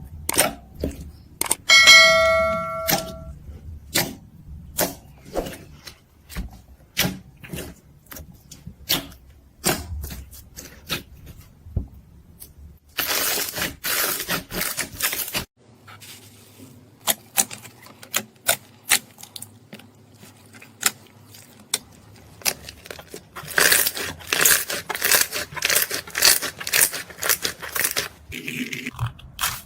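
Slime being pressed and squeezed by hand: sharp crackling clicks and pops throughout, with two longer stretches of dense crackling, one near the middle and one near the end. About two seconds in there is a single ringing ding that fades over a second or so.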